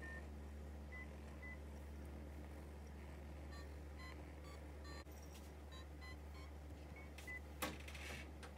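Smartphone dial-pad key tones, about a dozen short beeps at irregular spacing, as digits are tapped in on the phones' keypads during a connected call. A short scuffing noise near the end is the loudest sound, and a steady low hum runs underneath.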